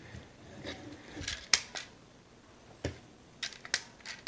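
Hard plastic parts of a Transformers Studio Series Mixmaster action figure clicking and snapping as they are moved and clipped together by hand: about eight sharp, irregular clicks.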